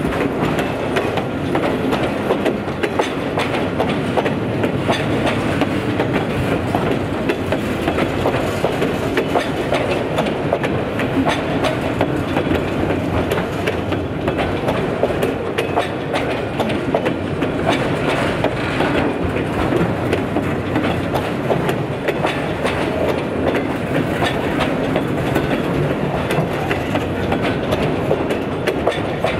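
Autorack freight cars rolling past, steel wheels on rail making a steady rumble with frequent sharp clicks.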